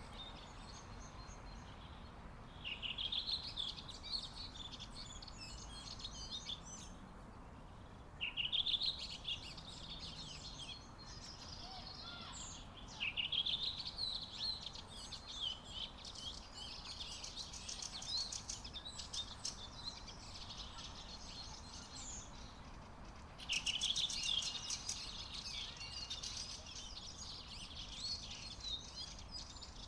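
Songbirds singing in short bursts of high, rapid chirping, one phrase every few seconds, over a steady low hum of background noise.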